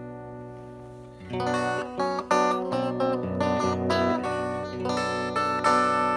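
Guitar played through the McGrath Mini guitar amplifier at low gain: a chord rings out and fades, then about a second in a run of picked notes and chords starts.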